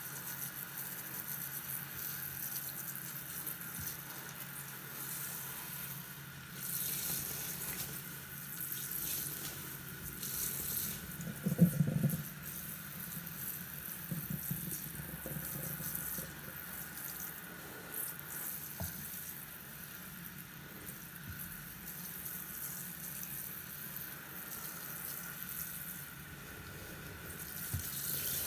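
Tap water running steadily onto a long foam sponge soaked in dish soap as hands squeeze and rinse it in a sink, with wet squishing from the sponge. A louder squish comes about twelve seconds in.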